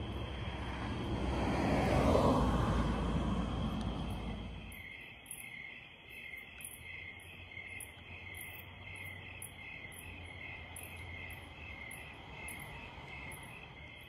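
A vehicle passes by: a rush of noise rises to a peak about two seconds in and fades away by about five seconds. After it, insects chirp steadily in pulses about twice a second, over a constant high trill.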